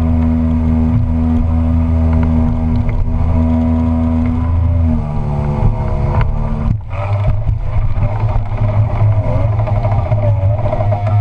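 Tohatsu M50D2S two-stroke outboard driving a water-jet unit, running hard and steady under way upriver through shallow rapids. About five seconds in its pitch drops a little, it dips briefly near seven seconds, and afterwards the engine note wavers as the load changes.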